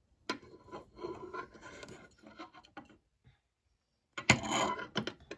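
Handling noise from wooden-handled metal bottle openers being moved about on a countertop: light scrapes and small clicks, then a louder rubbing scrape with a few clicks lasting about a second, starting about four seconds in.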